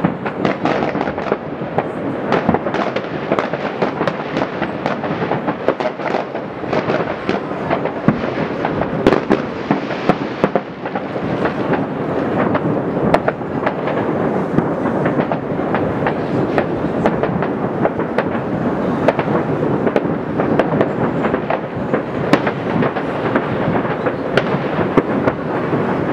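Many fireworks going off across a city at once: a dense, unbroken rumble of bangs and crackles at many distances, with no pause.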